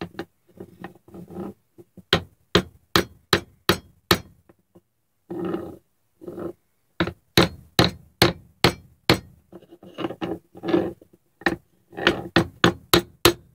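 Hammer tapping on a wooden block laid over a cigar box guitar fretboard, driving the frets down into their slots: sharp wooden knocks, about three a second, in several runs with short pauses between them.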